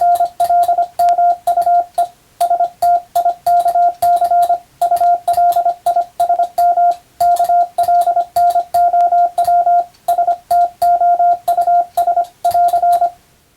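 Morse code sent by hand on a telegraph key: a single steady beep tone keyed into rapid dots and dashes, in groups of characters with short pauses between them, with faint clicks at each keystroke. It stops shortly before the end.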